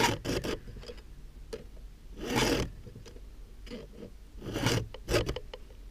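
Chainsaw file rasping across a cutter tooth of the saw chain in separate strokes, the biggest about two seconds apart, as the tooth is sharpened by hand.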